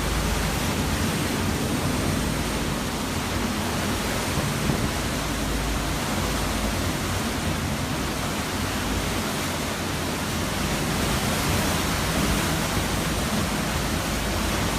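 Hurricane-force wind blowing steadily, buffeting the microphone with a deep rumble underneath.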